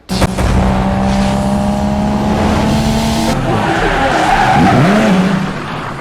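Car engine revving hard with tyres squealing, a produced race-car sound effect that starts abruptly and fades out near the end.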